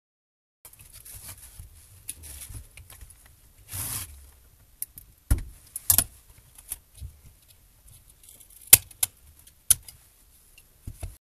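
Handling noise from a laptop cooling fan being lifted off a motherboard: rustling and scraping of plastic and metal parts, broken by several sharp clicks and taps, the loudest near nine seconds in.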